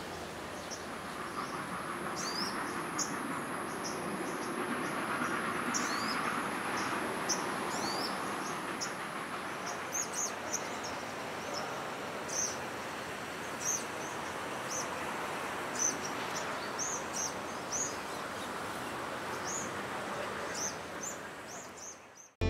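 Outdoor ambience: a steady rushing background noise with small birds chirping over it many times throughout. A thin, high, steady insect whine runs underneath and stops about ten seconds in, and everything fades out near the end.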